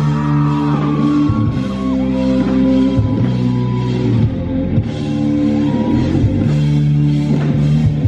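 Rock band playing live: electric guitars through amplifiers, bass and drum kit in a song's instrumental opening. The guitar notes slide in pitch during the first couple of seconds over held chords and steady drum hits.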